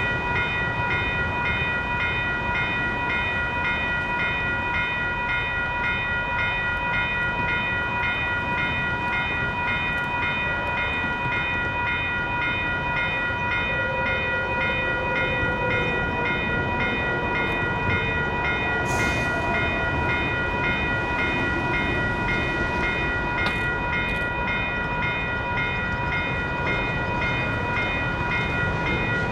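Railroad grade-crossing warning bell ringing continuously, the signal that a train is approaching, over a steady low rumble.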